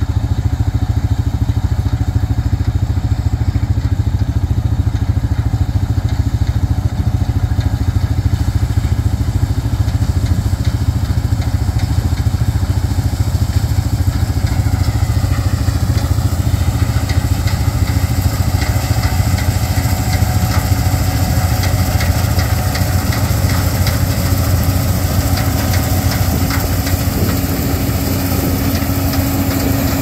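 New Holland TR86 combine harvesting soybeans: its engine runs steadily under load along with the working header and threshing machinery. A rattly clatter builds through the second half as the machine comes close.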